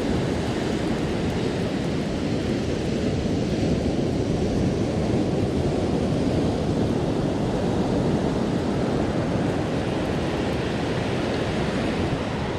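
Ocean surf washing onto the beach mixed with wind rushing across the microphone: a steady, even rushing noise.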